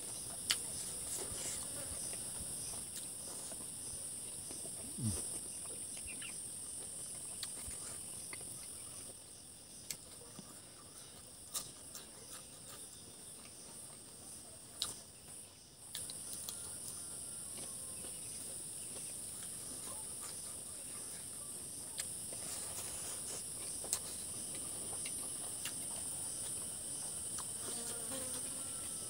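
A steady high-pitched chorus of insects that fades for several seconds near the middle and then comes back. Over it are scattered wet clicks and smacks of a person chewing chicken and eating with their fingers.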